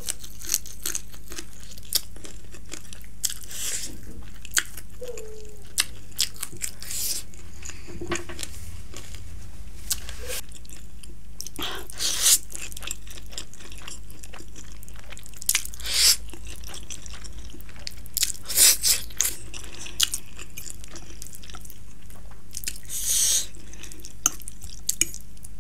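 Close-miked eating: a person chewing and biting a fried chicken wing and saucy instant noodles, with many small wet mouth clicks and several louder slurps of noodles scattered through, the loudest a little past halfway.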